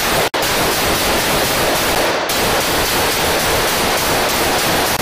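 Loud, steady static hiss covering the whole audio track, like an overloaded or masked body-camera recording. It cuts out for an instant about a third of a second in.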